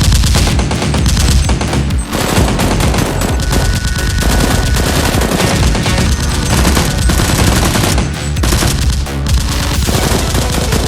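Sustained rapid automatic gunfire, shot after shot with no real break, over background music.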